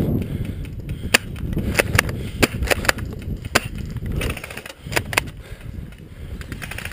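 A string of about nine sharp snaps at irregular spacing, clustered between about one and five seconds in, over a steady low rumble.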